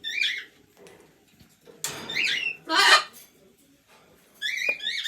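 African grey parrot calling in short, high whistles and squawks with sliding pitch: one near the start, a harsher squawk and a whistle around two to three seconds in, and another near the end.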